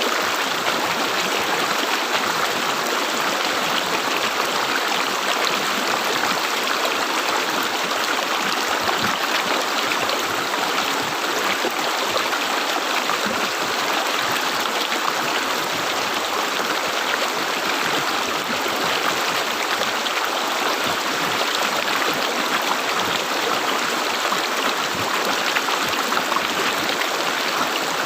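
River water flowing and gurgling steadily, an even rushing with no breaks.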